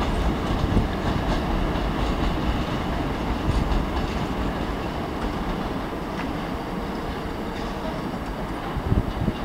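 Hankyu electric trains running away over the station throat's pointwork, a dense low rumble with scattered clicks that slowly fades as they pull away.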